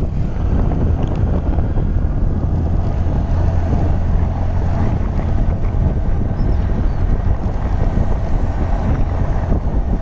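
Steady wind rush buffeting the microphone of a phone carried on a moving motorbike.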